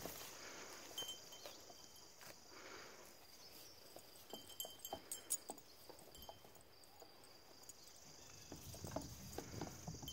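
Faint taps and clicks of Alpine and LaMancha goat kids' hooves as they step along a row of stacked tires, coming closer together near the end. A steady high-pitched insect chorus runs beneath.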